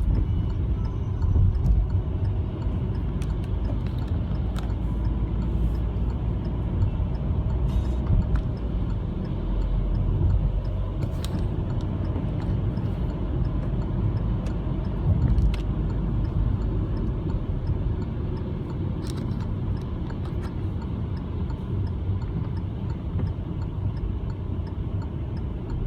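Steady low rumble of a car driving, heard from inside the cabin, with a few faint clicks over it.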